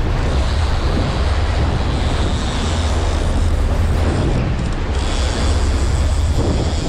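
Boat engine running steadily with a low rumble, mixed with wind and water rushing past the hull.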